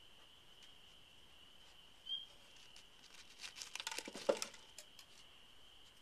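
Raccoon pawing through a bowl of birdseed: a run of dry crackles and clicks of seed shifting for about two seconds past the middle, over a steady high chirring of crickets.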